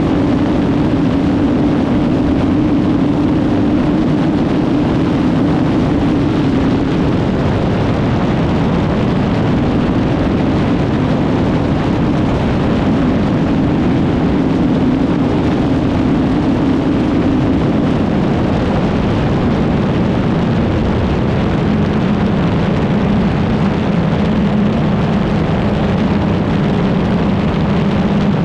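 Kawasaki Z1000 R's inline-four engine running hard in sixth gear at around 200 km/h, under heavy wind rush. The engine note holds steady, then drops in pitch in the last third as the bike slows.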